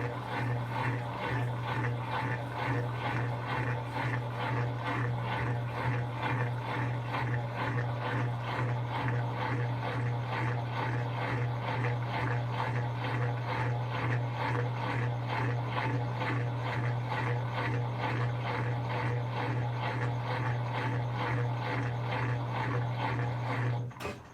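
Brastemp BWK17 17 kg washing machine running with a strong, steady low hum and a fast, even pulsing. The sound stops abruptly just before the end.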